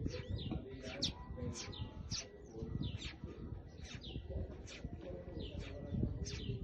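Birds calling: a quick series of short, high chirps, each sliding downward in pitch, about two or three a second, over a low background rumble.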